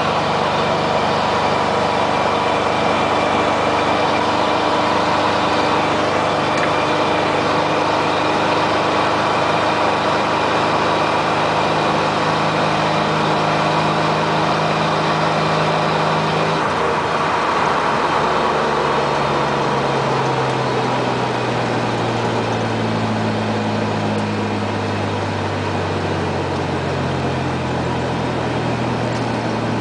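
The 3.9-litre V6 of a 1997 Dodge Ram 1500 running through a Flowmaster Super 44 muffler with no tailpipe, a steady exhaust drone while driving. About two-thirds of the way through, the engine note drops to a lower pitch and settles there. The engine is misfiring on cylinder six (codes P0206 and P0306).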